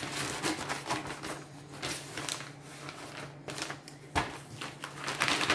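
Plastic storage pouch and paper cross-stitch pattern sheets rustling as they are handled and pushed back into the pouch, in irregular bursts, with a single thump about four seconds in.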